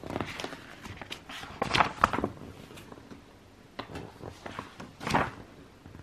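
Glossy pages of a theatre programme being turned and handled, a few short paper rustles and swishes, the loudest about two seconds in and again about five seconds in.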